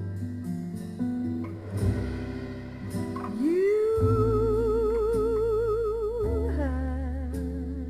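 Recorded slow vocal ballad played back over Yamaha NS-E80 speakers with a subwoofer: sustained keyboard chords over bass, then a long note with wide vibrato that slides up into place about a third of the way in and holds for about three seconds.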